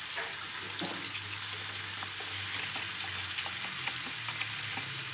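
Tomato and pea sauce sizzling in a frying pan on the stove: a steady hiss with scattered small pops and crackles.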